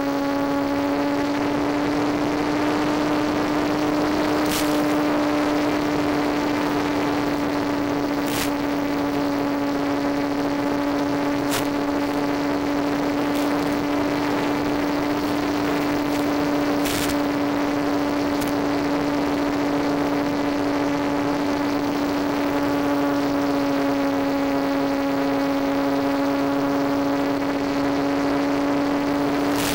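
The Easy Star RC plane's electric pusher motor and propeller giving a steady, even drone at constant throttle, picked up by the onboard FPV camera. A few sharp clicks of radio static break in now and then.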